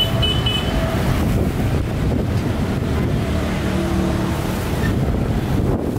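Steady low rumble of street traffic mixed with wind buffeting the microphone.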